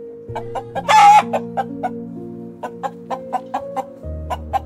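Chicken clucking in a quick, even run of about four clucks a second, with one louder drawn-out squawk about a second in. Soft background music with slow, held chords plays underneath.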